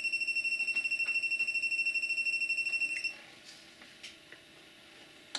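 Non-contact AC voltage detector sounding a rapid high-pitched beeping, so fast it is almost a steady tone: its alarm that voltage is present. It cuts off suddenly about three seconds in, followed by a few faint clicks.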